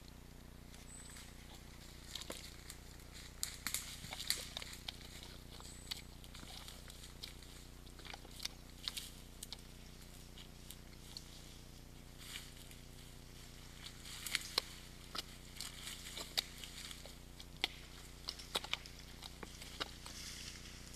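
Red deer moving about in a mud wallow: scattered, irregular soft clicks and squelches of hooves and muzzle in wet mud, in two busier stretches, over a faint steady hum.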